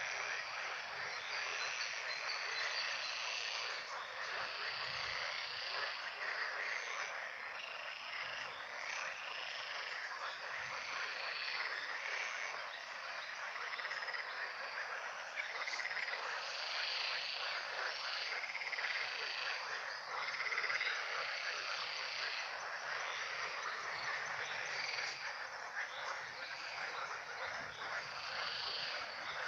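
A chorus of many frogs calling over one another, dense and steady throughout.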